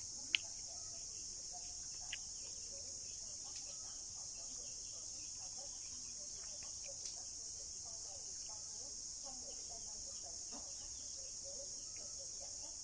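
Insects chirring in a steady high-pitched chorus, with a sharp click just after the start and a few fainter ticks later.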